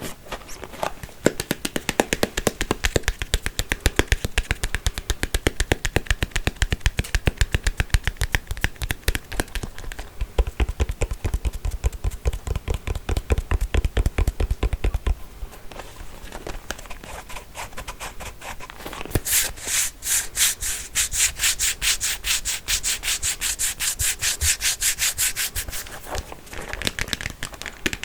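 Comb teeth being scratched and strummed close to the microphone, a fast run of many clicks a second. About two-thirds of the way in the strokes turn brighter and crisper.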